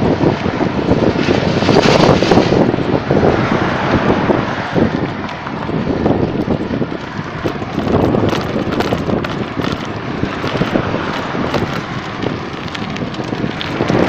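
Wind buffeting a phone's microphone while moving at speed: a rough, rushing rumble that swells and eases.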